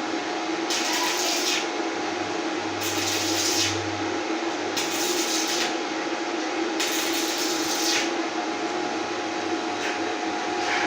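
Electric can-sealing machine running steadily with a low hum, with a burst of hissing about every two seconds.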